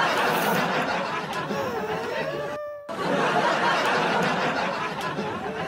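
A crowd laughing and chattering, many voices at once. It cuts out briefly about two and a half seconds in and starts again, as a played sound clip would.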